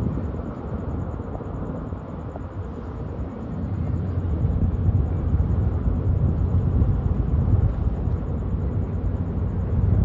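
Low, steady rumble of the Lobo Marinho ferry's diesel engines as the ship manoeuvres in toward the quay, swelling a little about four seconds in.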